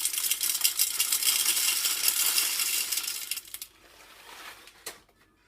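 Dry popcorn kernels poured into a cast-iron pot: a dense rattle of many small hard grains hitting metal that stops about three and a half seconds in. A single sharp click follows near the end.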